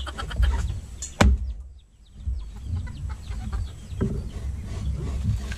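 A bolo knife chops into a young green coconut once, about a second in, with a sharp knock, followed by fainter handling and a second lighter knock as the coconut is split open. Fowl cluck in the background.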